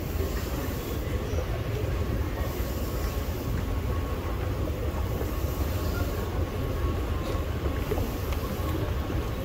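Steady low rumble of a moving bus heard from inside the passenger cabin, with a faint steady whine and a few small rattles.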